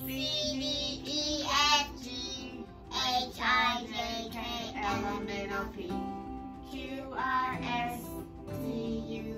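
A young girl singing, with music playing underneath.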